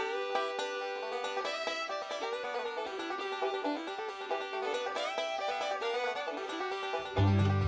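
Background music: a bright, quick tune on plucked string instruments in a bluegrass style, with a bass line coming in near the end.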